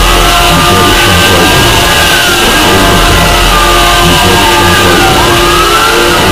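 Many overlapping copies of a sound effect played at once, very loud and distorted, with several wailing tones gliding slowly up and down over a dense low drone.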